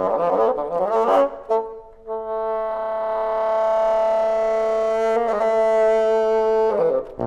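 Solo bassoon playing a quick rising run of notes, a short note, then one long held note lasting about four and a half seconds.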